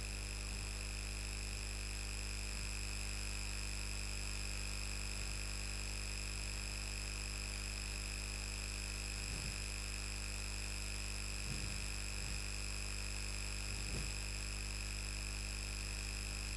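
Steady electrical hum with several constant high-pitched whining tones over it. A few faint marker strokes on a whiteboard come through about nine and a half, twelve and fourteen seconds in.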